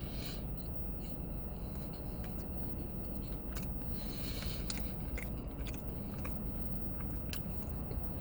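Close eating sounds: scattered small clicks and crackles of chewing and handling a paper sandwich wrapper, with a short crinkle about four seconds in, over a steady low hum.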